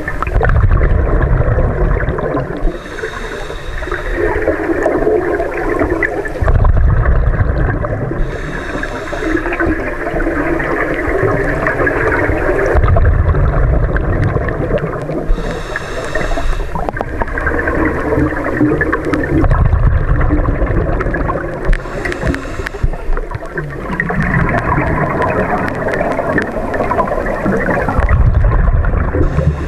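Scuba regulator breathing heard underwater: a hissing inhale through the regulator alternating with the low rumbling gurgle of exhaled bubbles, repeating about every six seconds.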